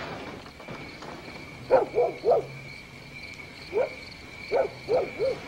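A dog barking seven times in short groups (three quick barks, one on its own, then three more) over a steady high-pitched ringing tone.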